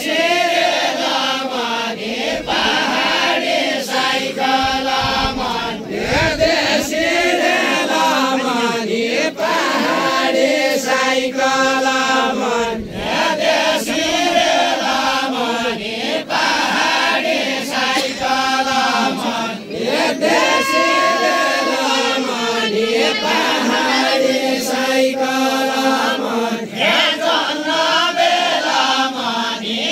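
Group of voices chanting together in a steady sung melody over a held low note, going on without a break.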